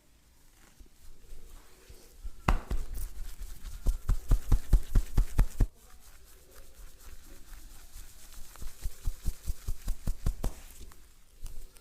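Quick, rhythmic hand slaps and taps of an Indian head massage, about five strikes a second, in two runs: one of about three seconds starting a couple of seconds in, then a shorter one later.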